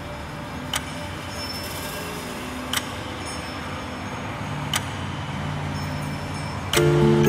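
Ambient film soundtrack: a steady rushing hiss with faint low held tones and a sharp click every two seconds. Near the end, louder pitched music notes come in.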